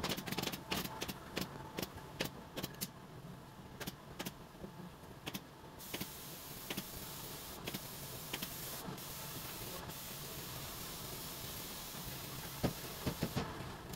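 Rustling and light taps of upholstery fabric being pulled and smoothed over a foam sofa seat block by hand, then from about six seconds in a steady hiss that cuts off suddenly near the end.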